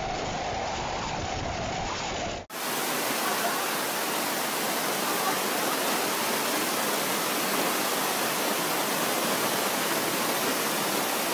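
For the first couple of seconds, storm wind and driving spray make a steady noise with a deep rumble. Then, after a sudden cut, floodwater pours down a flight of outdoor stone steps as a steady rushing cascade.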